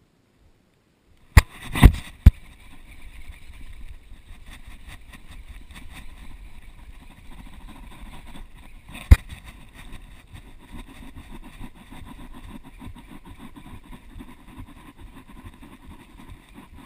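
A baitcasting reel cranked steadily, a rough whirring, as a hooked largemouth bass is reeled in on a bent rod. Sharp knocks against the chest-mounted camera come in a quick cluster of three about a second and a half in, with one more about nine seconds in.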